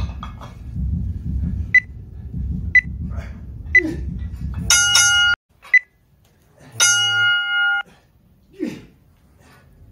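Interval timer counting down with three short high beeps a second apart, then a long buzzer tone. Another short beep and a second long tone about a second long follow. A low rumble of movement runs under the first half and cuts off suddenly.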